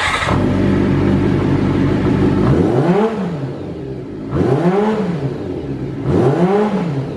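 Kawasaki Zephyr χ's air-cooled 400 cc inline-four, breathing through a Mad Max black four-into-one collector exhaust, fires up and runs at a steady idle. From about two and a half seconds in it is blipped three times, each rev rising and falling back in pitch.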